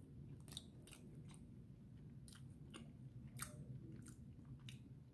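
Faint close-up chewing of a strawberry and cream cheese filled doughnut: scattered soft mouth clicks and smacks over a low steady room hum.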